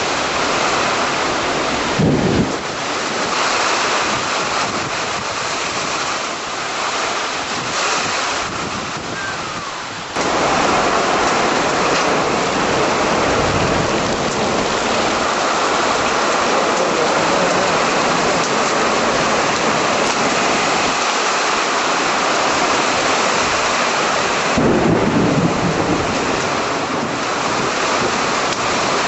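Heavy rain pouring steadily in a severe thunderstorm, with a sudden loud crack of thunder about two seconds in and another a few seconds before the end. The rain gets louder at once about a third of the way through.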